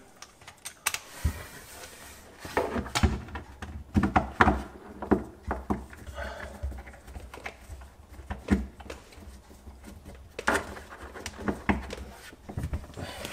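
A screw being hand-driven with a Phillips screwdriver to fix a mounting bracket to the wooden side of a sink cabinet: scattered clicks, scrapes and knocks of the tool, screw and hardware at irregular intervals.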